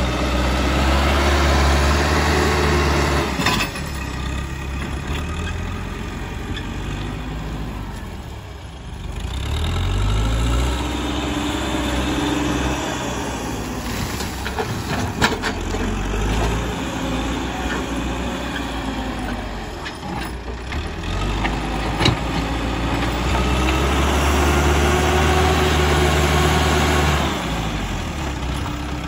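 Caterpillar 434E backhoe loader's diesel engine working under load, revving up and dropping back several times as the loader pushes and dumps soil. A few sharp knocks stand out, the loudest about halfway through and again about two-thirds of the way in.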